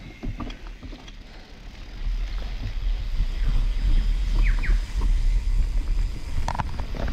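Mountain bike riding over a dirt forest track: a heavy low rumble of tyres and wind that grows louder about two seconds in, with scattered rattles and clicks from the bike.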